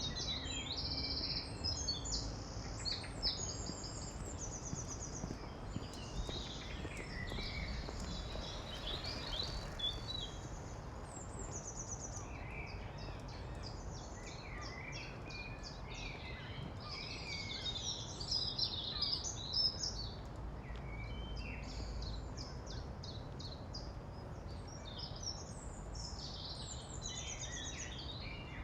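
Several birds calling and singing in short chirps and quick trilled runs, thickest about two to four seconds in and again near twenty seconds, over a steady low background rumble.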